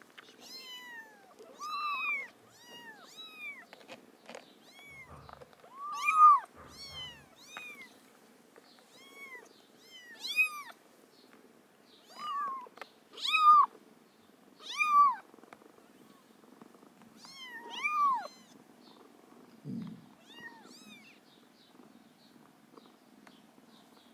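Young kittens mewing over and over in short, high, rise-and-fall calls while they nurse, over a soft continuous purr. The mews die away shortly before the end.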